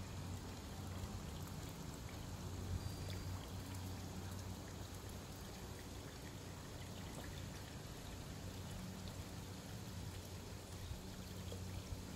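Pool water trickling and lapping, with faint small splashes from two juvenile mallards dabbling at the surface, over a steady low hum.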